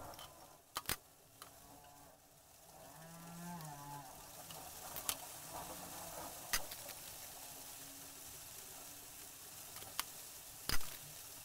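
Scattered sharp metallic clicks as small steel chainmail rings and pliers are handled, over a steady hiss. A faint, short low call sounds in the background about three seconds in.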